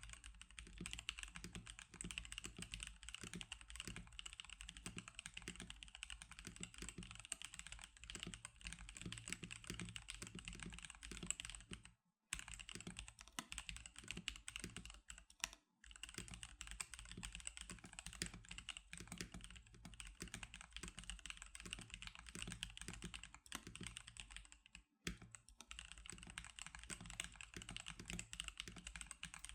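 Typing on an NK87 custom mechanical keyboard: a steady run of key clicks and clacks, with three brief pauses.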